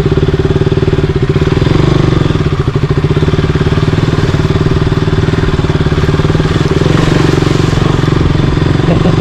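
Motorcycle engine running at a steady, fairly low engine speed, close up, without revving.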